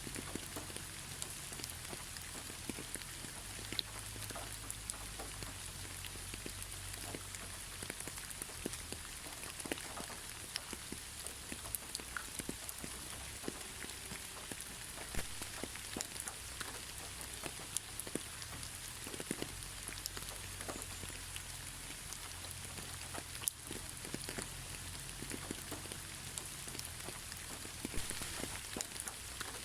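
Steady gentle rain: a continuous hiss with many individual drops tapping close by, and no thunder.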